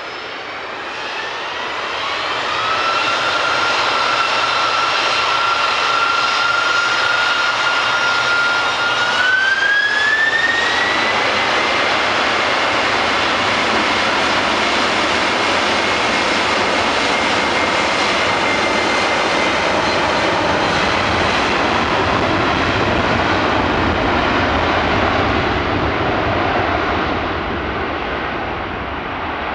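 Boeing 747-400 freighter's four jet engines spooling up to takeoff thrust. A whine rises in two steps, about two seconds in and again around nine to ten seconds in, over loud steady jet noise through the takeoff roll. The sound eases off near the end as the aircraft moves away down the runway.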